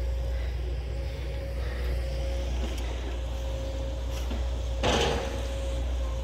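Excavator's diesel engine running steadily at a distance, a low even rumble with a constant whine above it. A short rush of noise comes about five seconds in.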